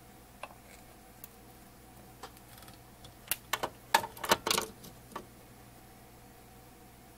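Light clicking and tapping as a soldering iron and fingers work a wire onto a circuit board in a metal chassis: a few scattered clicks, then a quick cluster of taps from about three to five seconds in.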